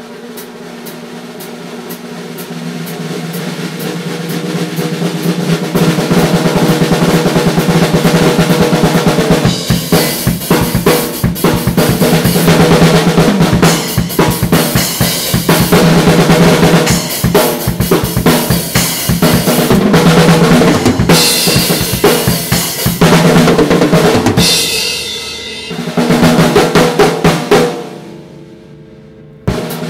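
Full drum kit played in a jam, built around a Mapex Armory Exterminator 14x6.5 birch/walnut snare, with bass drum, toms and cymbals. It builds up over the first few seconds into loud, dense playing, thins out near the end, then starts again just before the close.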